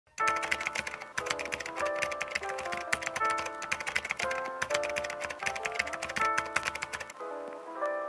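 Light melodic background music with rapid keyboard-typing clicks over it; the clicks stop about seven seconds in and the music plays on alone.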